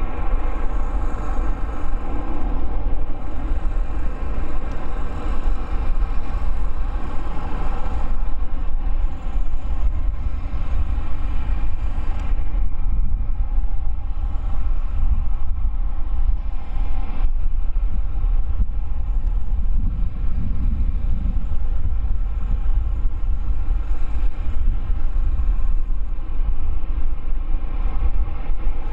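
Boeing 787-9's Rolls-Royce Trent 1000 turbofans running on the ground: a steady whine of several tones over a low rumble.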